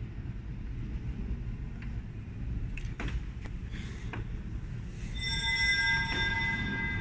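Low hum of a large church interior with a few knocks and shuffles from people in the pews. About five seconds in, a pipe organ begins softly with steady high held notes.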